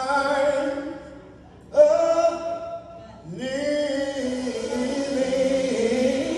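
Gospel singers holding long sung notes through a PA, three phrases, the last held for about three seconds while the pitch steps up and down.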